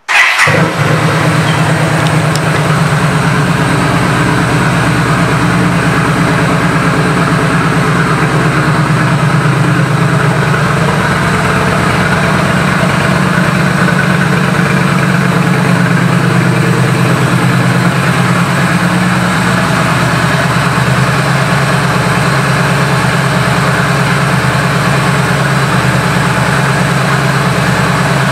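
Yamaha Stryker's V-twin engine starting with a brief loud burst, then idling steadily.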